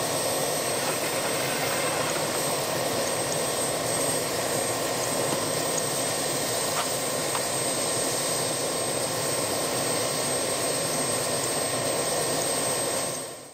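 Helicopter turbine engine running steadily on the ice: an unchanging rushing noise with a thin, high, constant whine. It fades in at the start and out at the end.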